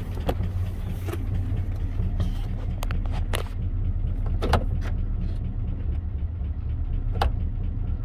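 Chevy 5.3-litre V8 idling in gear, heard from inside the cab as a steady low running sound, with a few sharp clicks scattered through it. The engine is running with almost no oil and only about 5 psi of oil pressure, and the owner fears it is seizing.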